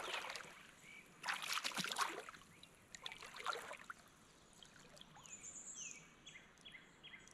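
Shallow river water splashing and sloshing in three short bursts around a wading angler's legs as he handles a caught channel catfish. In the second half, faint short falling chirps come about two a second.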